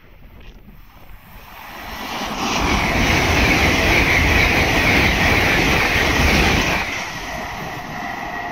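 LNER Azuma high-speed train passing through the station at speed. A rushing noise builds over about two seconds and stays loud for about four, then drops sharply as the last coach goes by, leaving a fainter receding hum.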